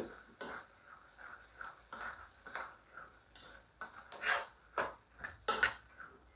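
A spatula stirring half-cooked, wet green gram (mung beans) in a nonstick pot: a quick run of short scraping and scooping strokes against the pan.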